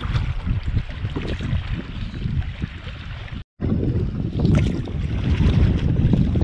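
Wind buffeting the microphone over choppy seawater splashing and sloshing around a person wading chest-deep. The sound drops out completely for a moment about halfway through.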